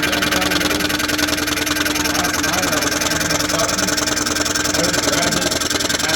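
DeWalt scroll saw running steadily, its blade chattering fast up and down through wood with a steady motor hum. The high rattle stops right at the end.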